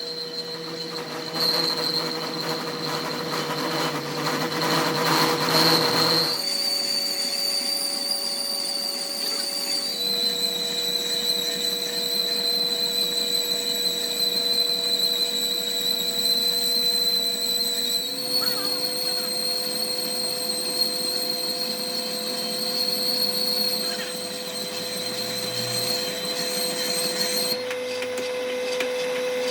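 Machine tool cutting metal, giving a steady high-pitched whine that jumps to a slightly different pitch a few times.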